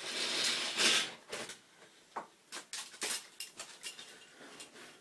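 Handling noise: a loud rustle for about a second, then a run of light clicks and clatters like small hard objects being knocked together or moved.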